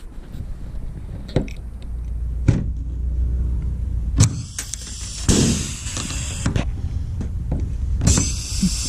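Handheld power drill running in two bursts of about a second each, drilling the hood for hood pins, after a few sharp clicks of tool handling.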